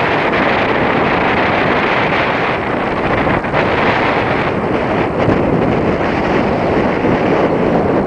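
Wind buffeting the camera microphone in a steady rushing noise, over sea surf washing against coastal rocks.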